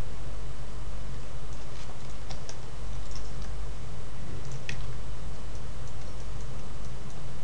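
Scattered light clicks of a computer mouse and keyboard, a few at a time with short gaps, over a steady low electrical hum.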